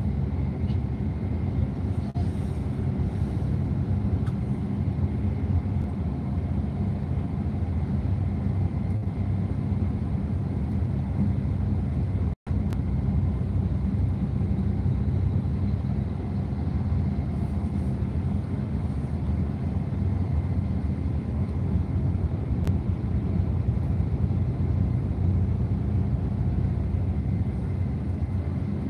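Steady low rumble of an intercity coach travelling along the road, heard from inside the passenger cabin. The sound cuts out completely for an instant about twelve seconds in.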